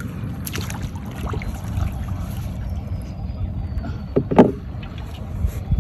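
Steady low rumble of water and wind around a small wooden boat, with scattered knocks and clicks of fishing gear against the hull as a crab-trap line is hauled in by hand. The loudest knock comes about four seconds in.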